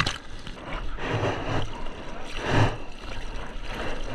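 Sea water sloshing and lapping against a bodyboard close to the microphone, with two soft splashes about a second and two and a half seconds in.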